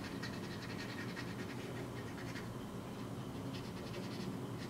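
Quick, light scratching strokes against the hardened epoxy patch on a camera-glasses frame as it is worked to blend it in, over a steady low hum.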